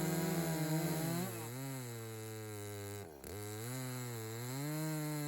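Echo CS355T two-stroke top-handle chainsaw running at high revs while cutting a cookie from a log. Its engine note falls under load about a second in, dips sharply for a moment around three seconds, then climbs again near the end.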